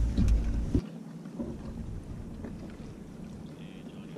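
A kayak's action-camera microphone picks up a low rumble that cuts off abruptly under a second in. After that there is only a faint, steady hiss with a few light knocks from the kayak on calm sea.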